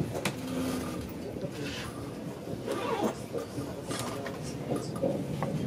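Interior running noise of an Intercity 2 Twindexx double-deck coach rolling slowly into a station: a steady low rumble with scattered clicks and knocks, and brief faint voices of other passengers.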